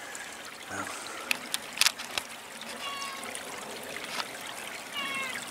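Creek water trickling and running steadily, with a few sharp clicks like footsteps on dry leaves and twigs in the first half. Two short pitched calls come about three and five seconds in.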